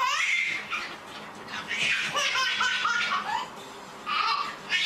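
A baby laughing and squealing in several high-pitched bursts.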